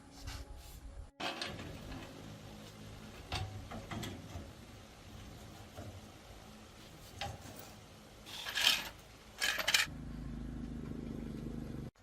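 Scattered clinks, knocks and scrapes of metal tools and parts being handled, with two louder rasping bursts near the end, followed by a steady low hum.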